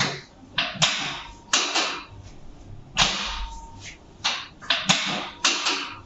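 Quick series of sharp knocks and scuffs from hands working a patient on a chiropractic table, about ten in six seconds, each starting sharply and fading within a fraction of a second.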